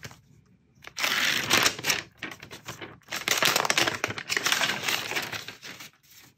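Protective paper wrap being peeled off the back of an iPad mini, rustling and crinkling in two spells: a short one about a second in and a longer one from about three seconds in.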